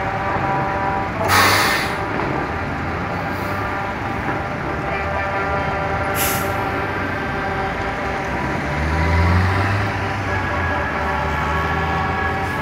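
Several heavy trucks' diesel engines running at idle in a slow-moving line, with two short air-brake hisses, about a second in and about six seconds in. About nine seconds in, one engine revs up.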